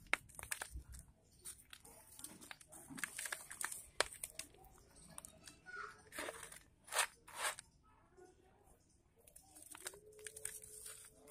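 Hands crushing and crumbling dry, gritty red dirt clumps in a plastic bowl: irregular crunching and crackling as the lumps break apart, with a few sharper, louder cracks around the middle.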